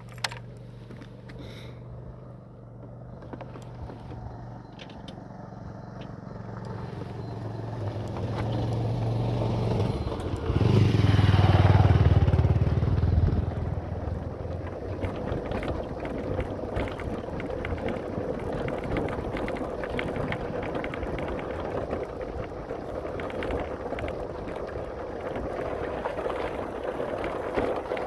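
Motorcycle engine running with a steady low hum that grows louder. About ten seconds in it revs hard in a loud surge, then settles into steady running under way with a noisy rush for the rest.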